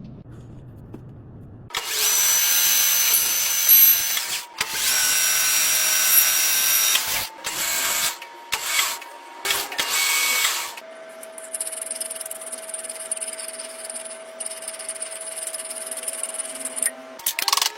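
Machine-tool cutting noise, typical of a CNC lathe cutting metal: several loud stretches of noisy cutting with a steady whine, each a few seconds long and starting and stopping abruptly. After that comes a quieter steady machine hum with a high tone.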